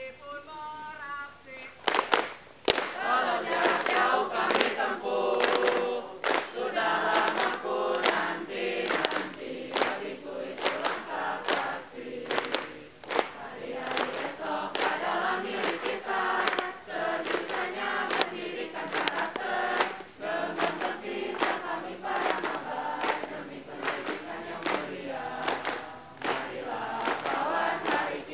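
A group of young men and women singing a yel-yel cheer song together while clapping their hands in a steady rhythm. The full singing and the claps come in about two seconds in, after a few quieter sung notes.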